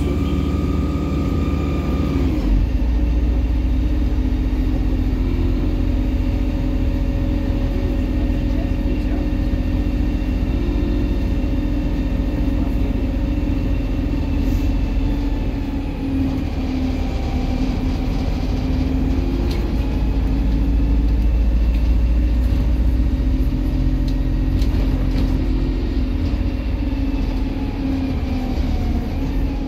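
MAZ-203 natural-gas city bus heard from inside the cabin while driving: a steady engine and drivetrain drone with road noise, its pitch drifting slowly as speed changes. A short steady beep sounds for about two seconds at the start.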